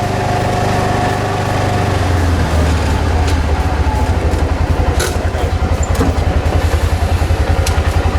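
A vehicle engine running with a low drone that settles, from a couple of seconds in, into an even, rapid pulsing, with a few light clicks and knocks over it.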